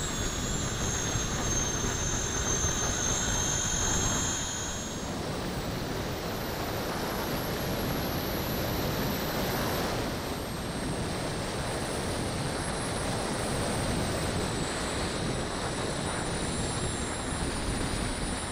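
The model Vulcan's four JetsMunt 160 model gas turbines running, heard from a camera on the airframe: a steady rush of jet noise and airflow with a thin high turbine whine. The whine slides down in pitch over the first few seconds, breaks off about four seconds in, and a different high whine carries on through the rest.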